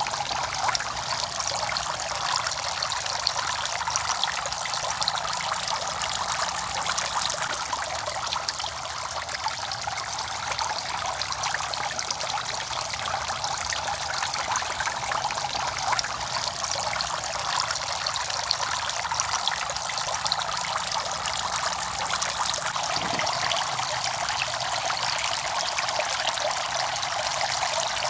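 Thin jets of water from clay-pot fountains falling into a shallow pond, a steady trickling splash.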